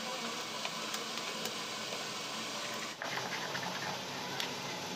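Spoon stirring thick palm-fruit batter in a glass bowl, faint, with a few light clicks of the spoon against the glass over a steady background hiss.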